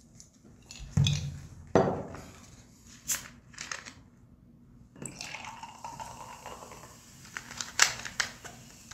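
A few knocks and clinks of a cup and bottle handled on a table, then cola being poured into a mug from about five seconds in.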